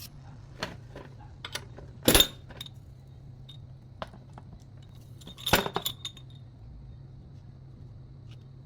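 Scattered metallic clinks and knocks, with two louder clatters about two seconds and five and a half seconds in, over a steady low hum.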